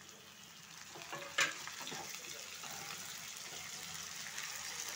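Chopped tomatoes and onions sizzling in oil in a nonstick frying pan, stirred with a wooden spatula; the sizzle builds over the first second or so. One sharp knock, the spatula against the pan, about a second and a half in.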